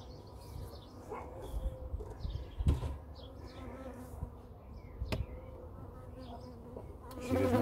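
Honeybees buzzing around an opened hive, a steady hum that grows louder near the end as a bee flies close to the microphone. Two sharp knocks break in, one about two and a half seconds in and one about five seconds in.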